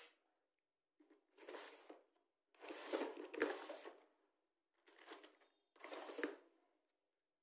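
Crinkling, rustling handling noise in four bursts, with a few light knocks, as a small fan motor, its wires and pliers are handled on a workbench.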